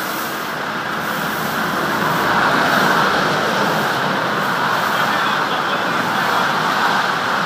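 Steady motorway traffic noise, tyres and engines of passing vehicles, swelling louder about two seconds in as traffic goes by.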